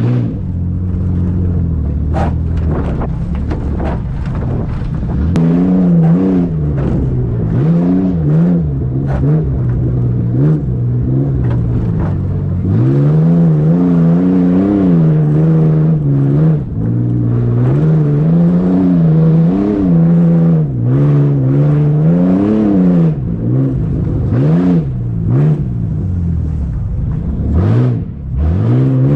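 A vehicle engine running under load. It holds a fairly steady pitch for the first few seconds, then revs up and down over and over, its pitch rising and falling every second or two, with scattered clicks and knocks over it.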